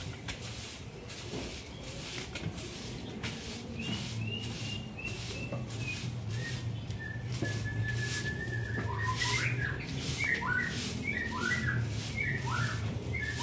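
Stick broom sweeping a brick-paved lane in repeated swishing strokes. From about four seconds in, a bird chirps and whistles in short gliding notes over the sweeping.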